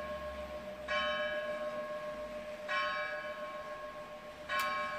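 A single church bell tolling, struck three times a little under two seconds apart, each stroke ringing on into the next.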